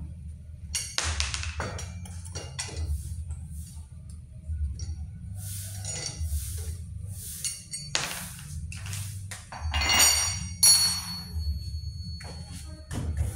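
Steel lug wrench clinking on wheel nuts as a car's front wheel is taken off: a string of irregular metallic clinks and pings, the loudest and longest-ringing one about ten seconds in, over a steady low hum.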